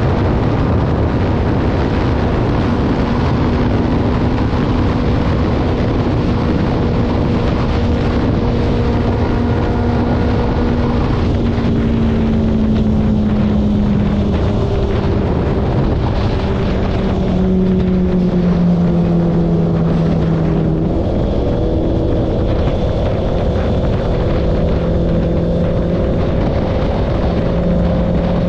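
Motorcycle engine running at highway speed under heavy wind noise on the microphone. The engine note sinks slowly over the first two-thirds, then holds steady.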